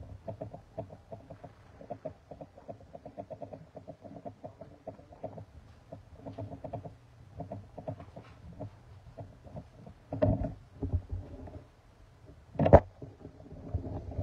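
Footsteps and costume rustle of a small group walking together, a fast uneven patter of soft scuffs. Two louder thumps come about ten seconds in and near the end.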